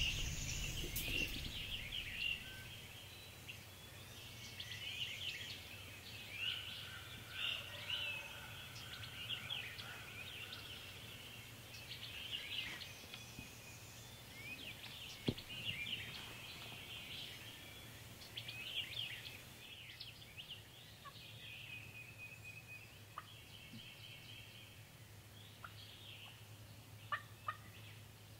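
Wild turkey gobbling over a chorus of songbirds chirping and singing.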